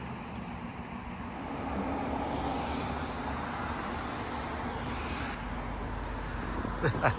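A motor vehicle running steadily with an even drone, and a brief clatter of knocks near the end.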